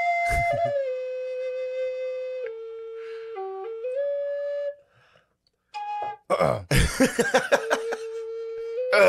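Native American-style wooden flute playing a slow melody of held, breathy notes that step down and back up in a minor pentatonic scale, with a pause about five seconds in. Just after the pause a loud rough burst of noise cuts in before the flute resumes with another long low note.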